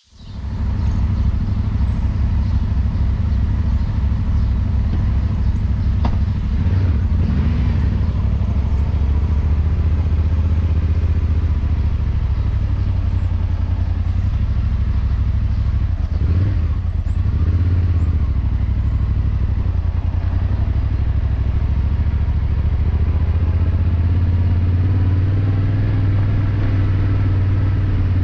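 Yamaha Ténéré 700's parallel-twin engine running steadily, cutting in abruptly at the start, with a brief dip in its sound about sixteen seconds in.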